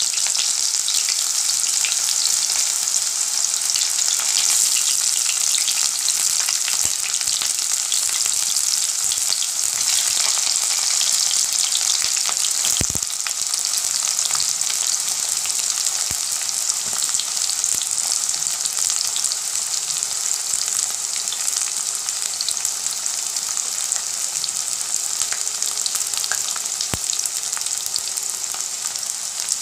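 Sliced onions sizzling steadily in smoking-hot mustard oil in a kadai, a dense high hiss with two sharp ticks, about halfway through and near the end.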